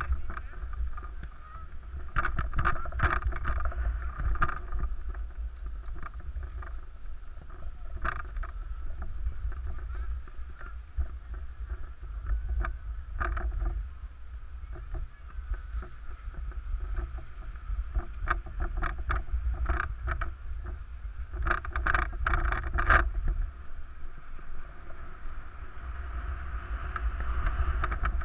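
Wind buffeting the microphone of a camera moving downhill with a skier, with skis scraping and hissing over the snow in several clusters of strokes, most strongly a few seconds in and again in the last third.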